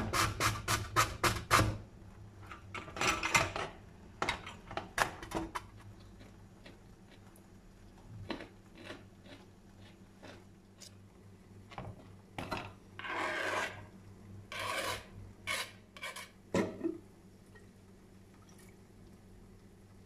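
Carrot being grated on a stainless-steel box grater. A quick run of rasping strokes, about four a second, comes first, followed by slower, scattered strokes and a few longer scrapes.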